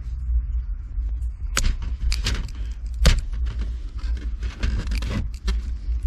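Irregular clicks, taps and light metallic rattles of hands working wires and small tools while joining a wire to a ground wire under a truck's dashboard, over a steady low hum.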